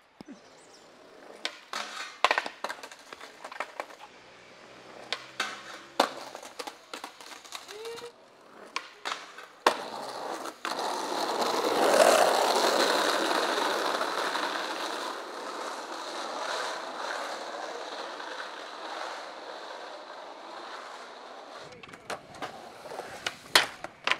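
Skateboard on the street: a run of sharp clacks from the board popping, hitting and landing, then, from about ten seconds in, a long rush of the wheels rolling on asphalt that swells to a peak and fades away over about ten seconds, then more sharp clacks near the end.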